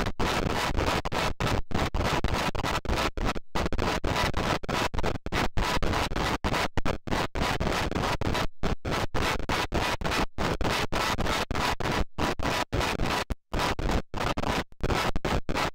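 Electroacoustic noise music: a dense, harsh wash of noise chopped by dozens of brief, irregularly spaced silences, so it stutters.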